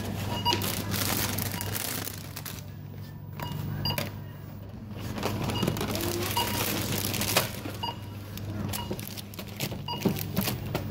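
Supermarket checkout background: short barcode-scanner beeps sound every second or so, with scattered clicks and clatter of goods, over a steady low hum.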